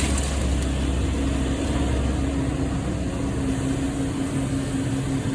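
An engine running steadily, a low hum with a steady drone above it.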